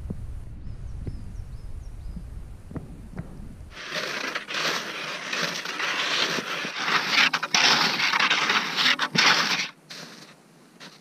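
Crunching footsteps through deep snow, loud and rough, starting about four seconds in and stopping sharply near the end. Before that, a quieter low rumble of open-air ambience.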